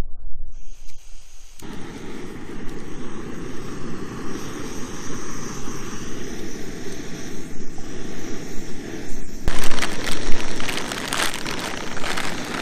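Small gas-canister backpacking stove lit about a second and a half in, then burning steadily under a pot with a loud rushing sound. For a few seconds near the end, louder rustling joins it.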